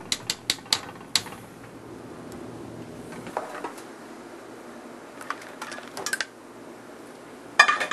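Mussel shells and a metal sauté pan clinking and clattering as the mussels are tossed and poured out: a quick run of sharp taps in the first second, a few scattered clicks later and one louder clack near the end, over a steady kitchen hum.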